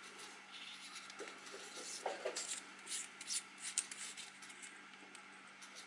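UltraFire XD-98H flashlight being twisted apart by hand: a run of light scrapes and small clicks from its parts and screw threads, busiest about two to four seconds in.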